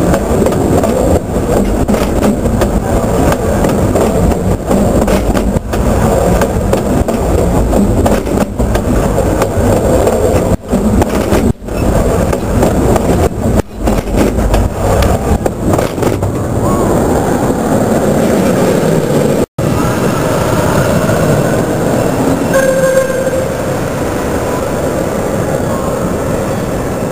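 Narrow-gauge railroad passenger cars rolling over the track right above the microphone: a loud low rumble with wheel clatter. The rumble drops away about sixteen seconds in as the last car passes and the train moves off.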